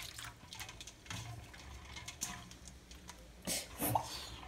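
Hands rubbing and sloshing in soapy water in a metal basin, with small faint splashes and drips; a couple of slightly louder splashes come near the end.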